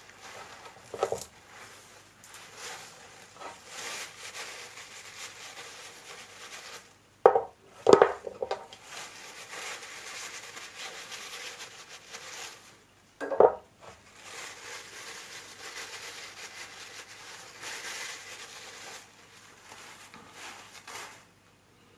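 Paper towel rustling as it wipes the solid steel dome jaws of a Record Power SC2 woodturning chuck, with clunks as the metal jaws are set down on the wooden bench: one about a second in, three close together around seven to nine seconds, and one more around thirteen seconds.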